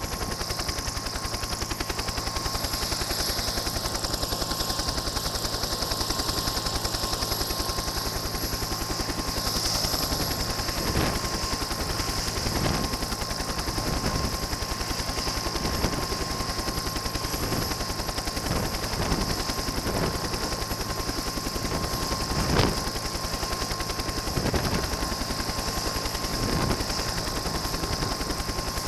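Bell UH-1 Huey-type helicopter running on the ground close by, its two-bladed main rotor turning with a rapid, steady chop over a steady high turbine whine.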